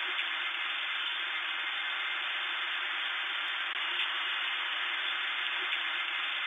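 Steady, unbroken hiss of TV-style static noise.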